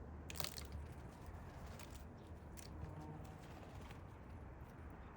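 Faint, scattered soft taps and rustles over a steady low rumble.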